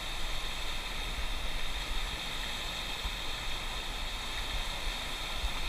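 Steady rush of water flowing over and below a lake spillway, an even hiss with no distinct events.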